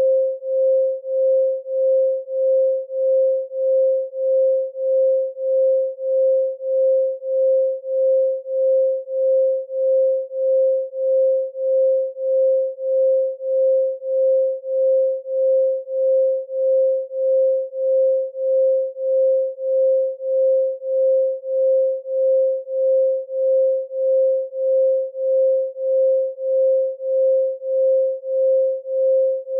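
A pure 528 Hz sine tone, steady in pitch, pulsing evenly in loudness a little under twice a second.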